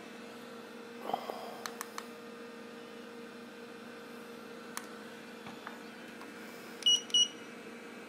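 Two short, high electronic beeps in quick succession near the end, over a low steady hum with a few faint handling clicks earlier.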